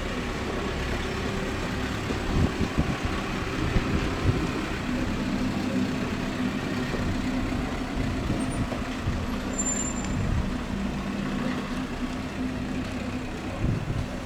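Gusty wind buffeting the microphone in a snowstorm, over the steady hum of a vehicle engine running.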